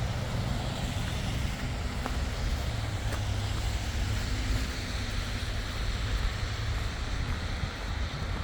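Steady low rumble of city street ambience, mainly distant road traffic, with no single event standing out.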